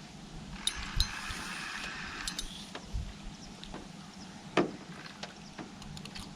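A few scattered knocks and clicks of fishing gear being handled in a boat, with a short rustle early on and the loudest knock about four and a half seconds in.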